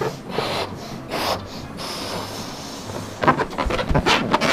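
Hard puffs of breath blown into latex balloons, one after another. About three seconds in they give way to a louder patch of rubbing and squeaking as an inflated balloon is handled.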